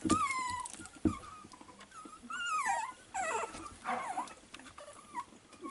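Young Staffordshire bull terrier puppies whimpering and squeaking: many short, high calls that slide down and up, several overlapping, with soft thumps at the start and about a second in.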